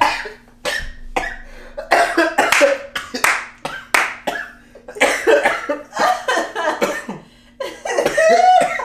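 A person's nonverbal vocal noises, coughs and breathy splutters in quick irregular bursts, with a faint steady hum underneath.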